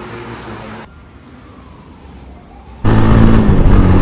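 Motorcycle engine running as the bike rides along, with wind rush, cutting in suddenly and loud about three seconds in after a quieter stretch; its pitch dips slightly just after it starts.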